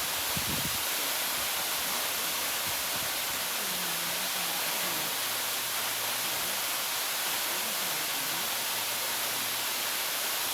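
Waterfall's steady rush of falling water, a dense even hiss.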